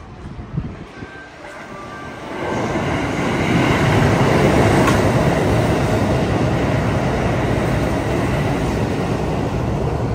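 Hanshin Railway electric train passing through the station at speed without stopping: its noise builds about two seconds in and stays loud and steady. A short sharp knock sounds just after the start.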